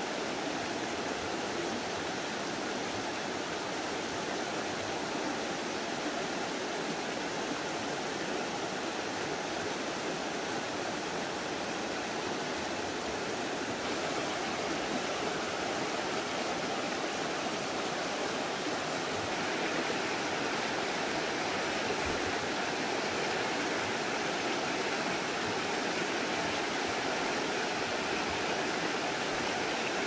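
Shallow mountain stream rushing over rocks and stones: a steady wash of running water, a little louder in the second half.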